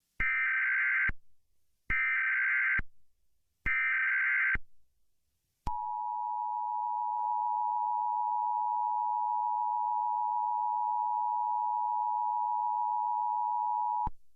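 Emergency Alert System tones: three short bursts of SAME digital header data, each just under a second long, then the two-tone EAS attention signal held steady for about eight seconds before it cuts off. Together they mark an EAS activation for a test message.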